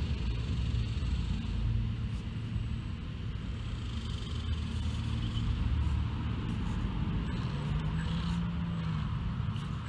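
Micro-scale RC rock crawler's electric drive motor whirring as it climbs over a rock, settling into a steadier hum near the end.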